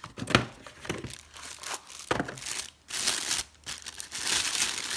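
Cardboard packing insert rubbing and knocking in short rustles as it is pulled out of the box. From about three seconds in, a thin plastic bag crinkles steadily as the camera lens wrapped in it is handled.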